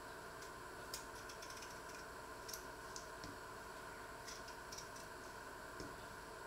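Faint, irregular clicks and scrapes of a small kitchen knife peeling potatoes by hand, with bits of peel dropping into a metal pan, over a steady background hiss.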